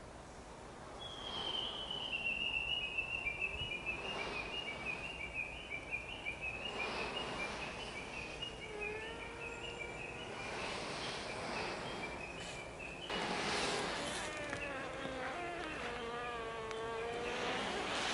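Japanese honeybees piping inside the hive: a high, thin pulsed piping starts about a second in and runs until about two-thirds through, and from about halfway lower overlapping toots rise and fall, over a buzzing that swells several times. Several bees' calls overlap; the colony is at the stage after its second swarm when new queens keep emerging.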